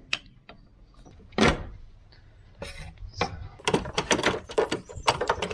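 Metal clinks from bolts and hand tools being handled, the loudest about a second and a half in, then a quick run of clicks and rattles near the end.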